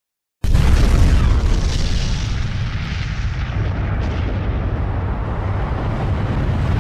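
Mushroom-cloud explosion sound effect: after dead silence it starts suddenly about half a second in, then carries on as a long, loud rumble with very heavy bass.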